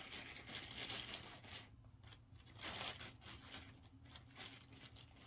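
Soft rustling of polyester stuffing being pulled apart and pushed into a small crocheted piece, loudest in the first second or so and again around three seconds in.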